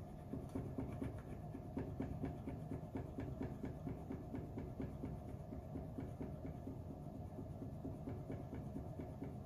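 Rapid scratching of a scratch-off game card on a tabletop, several short strokes a second, to reveal the numbered spot.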